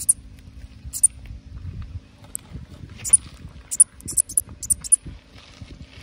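A Pseudophyllus katydid giving short, high-pitched, bird-like chirps, about ten of them spaced irregularly and coming closer together after about four seconds in.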